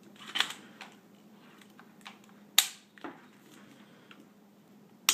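Sharp metal clicks of a Bushmaster AR-15's upper and lower receivers being reconnected, four in all; the loudest comes about two and a half seconds in and another sharp one at the very end.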